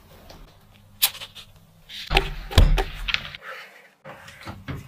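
Metal baking tray being handled: a sharp knock about a second in, then the tray scraping and sliding onto the oven rack, with a few softer knocks near the end.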